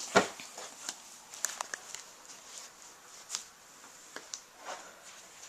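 Scattered light taps, scratches and rustles of a cat playing in a cardboard box with a bungee cord, the loudest a knock about a quarter second in.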